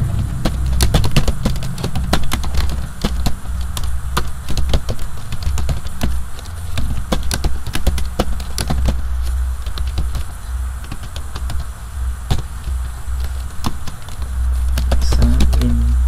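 Computer keyboard typing: quick, irregular keystroke clicks throughout, over a steady low hum that grows louder near the end.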